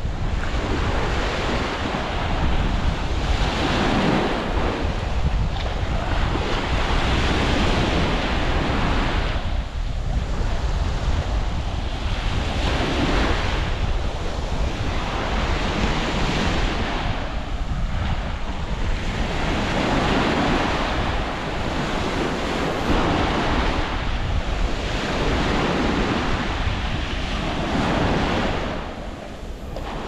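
Small sea waves breaking and washing up on a sandy shore in repeated swells every second or two, with wind buffeting the microphone in a steady low rumble.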